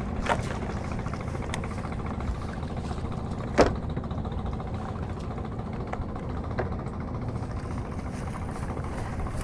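Boat engine running steadily at low revs, with a few short sharp knocks; the loudest knock comes about three and a half seconds in.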